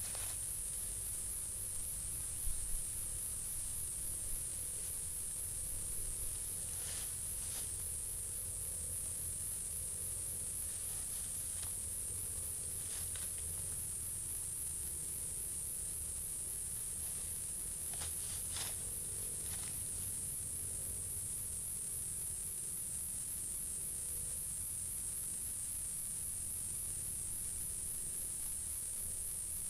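A steady, high-pitched insect chorus, a continuous shrill drone, with a few brief rustles or clicks: several about seven seconds in and a pair at around eighteen seconds.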